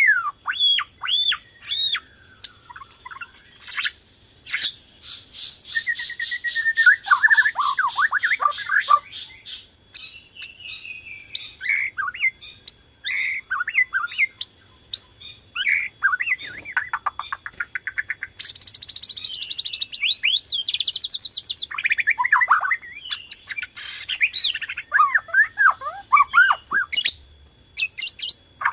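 Bornean shama (murai batu) singing energetically: a fast, varied stream of whistled slurs and trills, with a rapid series of repeated notes about five seconds in and a high, buzzy rattling passage a little past the middle.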